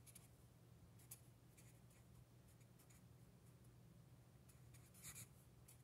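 Faint short strokes of a felt-tip marker writing on sketchbook paper, with a slightly louder stroke about five seconds in, over a low steady hum.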